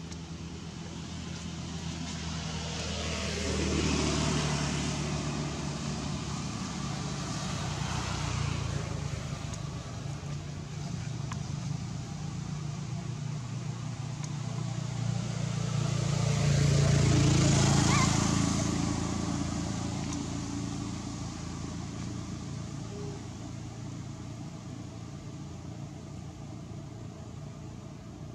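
Road traffic: vehicles driving past one after another over a steady engine hum. Each one swells and fades, and the loudest passes about two-thirds of the way through.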